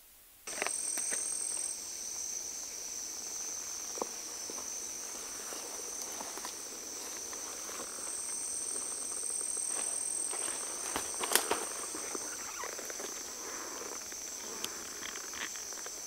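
Rainforest insects calling in a steady high-pitched drone of two held tones, starting suddenly about half a second in. Scattered light clicks and snaps sound over it, the sharpest about eleven seconds in.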